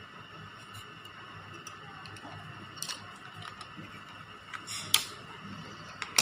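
A few sharp clicks and taps of small items being handled, the loudest near the end, over a faint steady hum.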